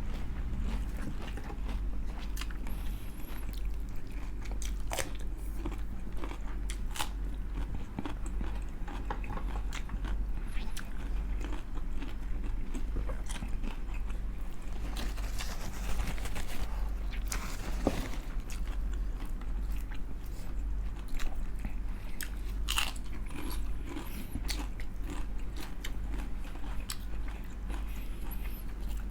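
Close-up crunching and chewing of crispy fried chicken skin, with irregular sharp bites and crunches. A steady low hum runs underneath.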